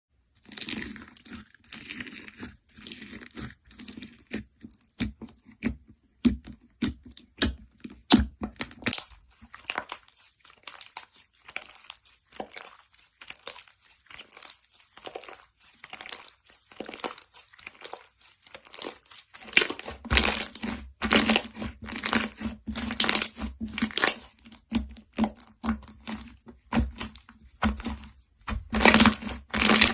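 Slime being squeezed and pressed by hand, giving a run of sharp crackles and pops. The crackling grows denser and louder about two-thirds of the way through.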